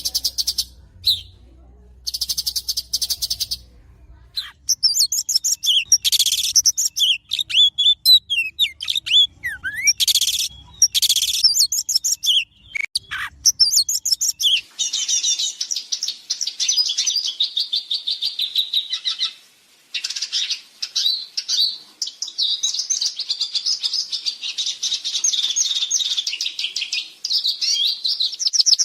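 Songbird song: rapid buzzy trills in short bursts, then a run of varied whistles and chirps, then about a second of break before a long stretch of fast, continuous warbling trills.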